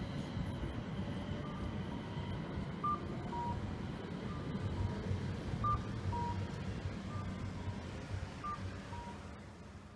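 Steady street-traffic rumble as a light-rail tram pulls away, with a two-note electronic chime (a high note, then a lower one) repeating about every second and a half, like a Japanese pedestrian-crossing signal.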